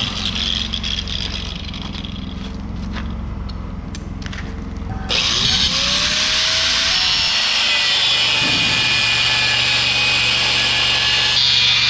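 A low steady hum with a few clicks, then about five seconds in a power tool starts abruptly, its motor sweeping up in pitch, and runs steadily with a loud, high rushing noise of cutting.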